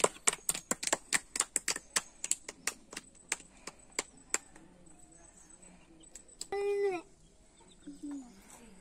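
Chick pecking at rice grains on concrete: a quick run of sharp taps that thins out after about four seconds. A brief voiced sound follows near the end.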